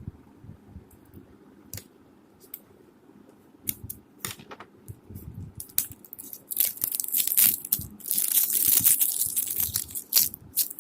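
Crinkling and crackling from something being handled: scattered sharp clicks at first, then about six seconds in a dense, continuous crackle that grows louder before easing off near the end.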